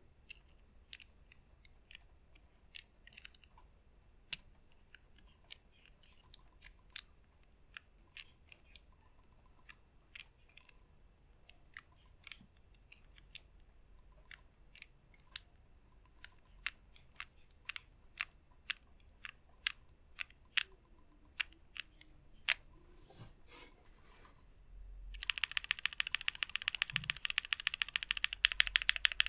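Mechanical keyboard keystrokes on a stacked-acrylic Drakon60 with CRP Tulip keycaps and thinly lubed switches: single keys pressed one at a time at uneven intervals, then near the end a burst of fast, continuous typing, much louder.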